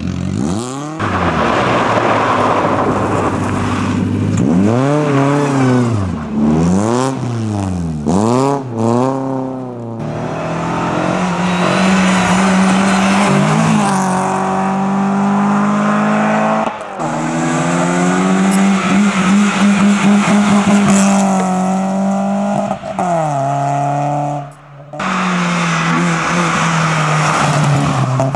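Rally cars driven flat out on a loose-surface sprint stage, one after another: engines revving hard, pitch rising and falling with the throttle and gear changes for several seconds, then held high for a long stretch. The sound breaks off sharply about three-quarters of the way through and another engine picks up straight after.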